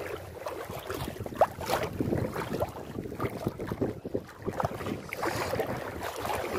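Sea water sloshing and splashing irregularly around someone wading through shallow water, with wind buffeting the microphone.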